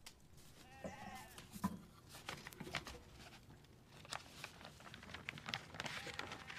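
A faint bleat about a second in, followed by soft clicks and rustles of a wooden-handled parchment scroll being handled and unrolled.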